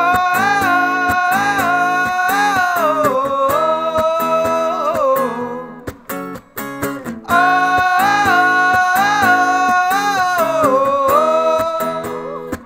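Acoustic guitar strumming while a man sings a long-held melody over it. The same phrase comes twice, each time sinking lower near its end.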